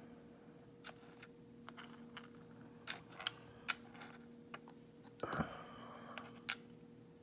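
Scattered small, sharp metal clicks and taps from handling the parts of a Yale 417N lock being taken apart, with a brief clattering rattle about five seconds in.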